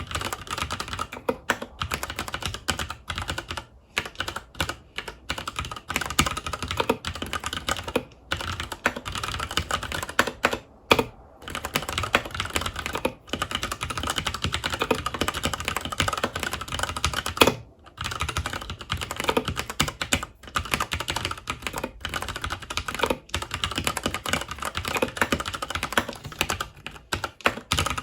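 Fast, continuous typing on a FILCO Majestouch 2 tenkeyless mechanical keyboard with Cherry MX Brown switches, the keys clacking in quick runs broken by a few brief pauses.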